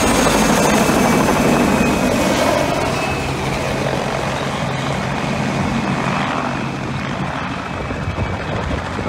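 Mi-2 helicopter passing low overhead: turbine and rotor noise over a steady low hum, loudest in the first two seconds, then easing a little as it moves off.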